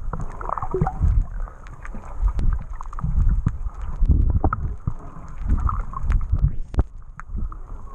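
Muffled water sloshing and rushing around a camera in the water, coming in irregular low surges, with many scattered sharp clicks.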